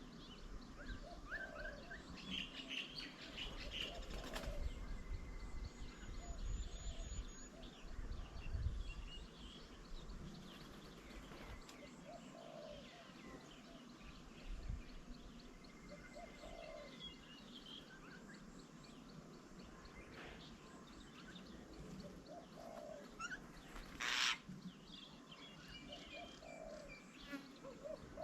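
Birds around a garden bird table: scattered short chirps and lower calls repeating every few seconds, with a brief rush of noise near the end, likely wings flapping.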